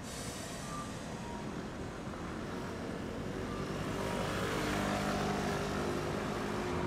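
Tosaden streetcar running, its rolling noise and motor hum growing louder, with several steady humming tones coming in about halfway through.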